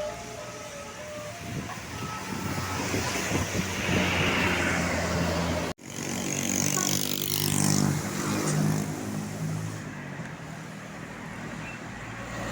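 Bus engine running amid road traffic noise, with a vehicle passing about four seconds in. The sound breaks off abruptly a little before halfway and comes back with an engine running again.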